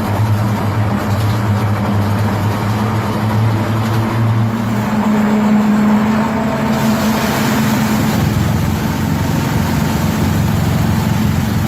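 Large road-cleaning machine's engine running steadily with a low hum; about seven seconds in, a hiss rises over it.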